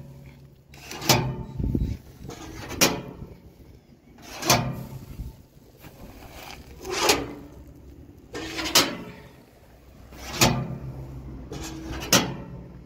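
Sheet-metal Y diverter valve on a pneumatic conveying duct being switched back and forth by its pull cables. Its flap knocks over against the steel housing with a ringing metallic clunk seven times, about every one and a half to two seconds, with a longer pause about halfway through.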